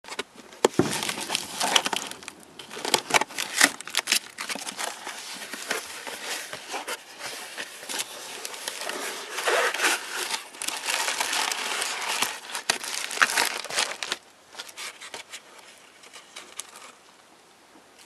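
Packing tape being slit and torn, cardboard box flaps pulled open, and plastic bubble wrap crinkling and crackling as it is handled. The dense crackling dies down in the last few seconds.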